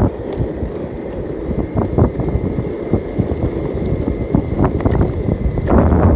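Skateboard wheels rolling over rough, cracked asphalt: a steady gritty rumble with scattered clicks and knocks, and wind buffeting the microphone. The rumble eases briefly near the start and grows louder again near the end.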